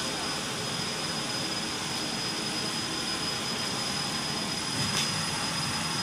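Steady rushing fan noise from a CO2 laser marking machine and its fume extraction while the laser cuts paper, with a thin high whine held throughout and one faint click about five seconds in.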